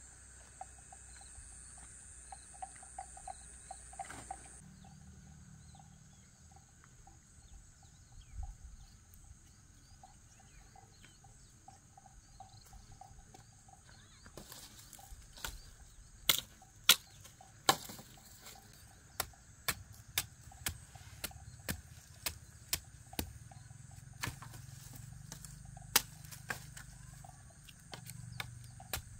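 Night insects trilling steadily. From about halfway, irregular sharp clicks and knocks, the loudest sounds here, come every second or so.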